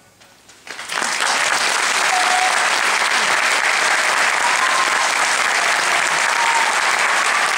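Audience applauding at the end of a dance number, starting about a second in after the music stops and then clapping steadily, with a few faint calls over it.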